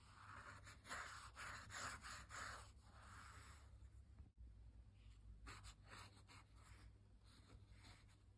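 Faint swishing of a wet paintbrush brushed across cold-pressed watercolour paper: several soft strokes in quick succession over the first three seconds or so, then a few fainter ones.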